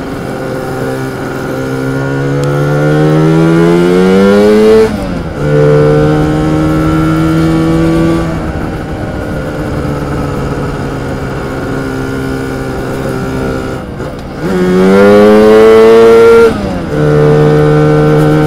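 Twin-cylinder two-stroke engine of a Lambretta TargaTwin 275cc scooter under way, its pitch rising as it accelerates, then dropping sharply at a gear change about five seconds in. It falls back, climbs again and drops at a second gear change near the end. It is pulling up a very steep hill, where it is a bit lacking.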